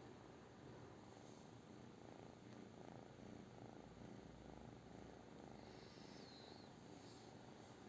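British shorthair cat purring softly, a faint low rumble that swells a little in the middle.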